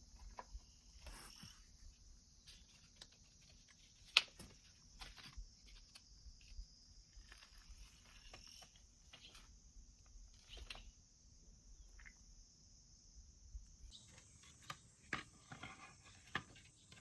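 Faint, steady high-pitched insect chirring, with scattered light clicks and taps, one sharper about four seconds in. A second, higher insect sound joins about three seconds before the end.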